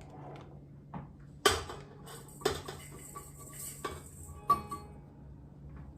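A measuring cup clinking and knocking against a mixing bowl five or six times while granulated sugar is scooped and poured, the pour a steady hiss in the middle of the stretch.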